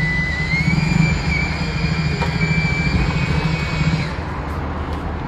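Angle grinder cutting through a motorbike lock: a steady high-pitched whine with a low hum beneath it, the pitch rising a little about half a second in, then cutting off suddenly about four seconds in, leaving street traffic noise.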